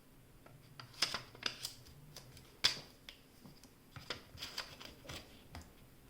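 Light clicks and taps as a laptop SO-DIMM RAM module is handled and pressed down into its slot. The sharpest click comes about two and a half seconds in.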